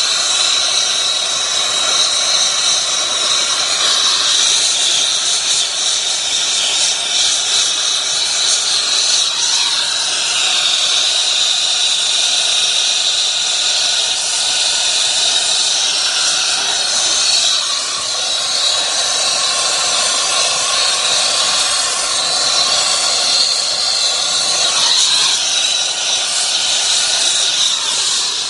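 Brazing torch flame hissing steadily as copper refrigerant lines are brazed onto a heat pump's service valves.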